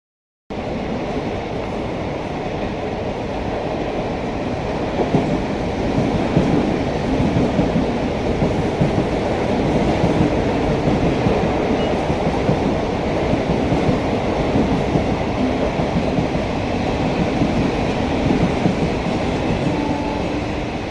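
Mumbai suburban electric local train running past, a steady rumble with rattling wheel clatter, growing louder about five seconds in.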